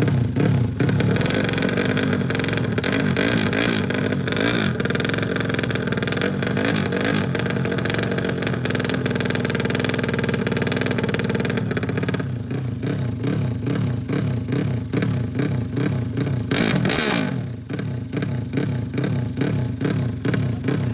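Drag-tuned 380 cc Honda Sonic motorcycle engine revving hard. It is held high for about twelve seconds, then blipped up and down repeatedly in quick swells, with a short hissing burst near the end.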